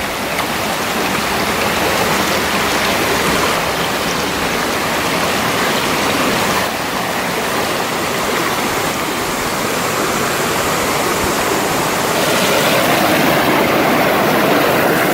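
Waterfall water rushing in a loud, steady roar, dipping slightly about six seconds in and growing louder about twelve seconds in.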